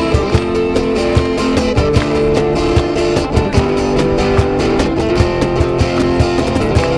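Live acoustic guitars strummed in a steady rhythm, with sustained chords and a regular beat.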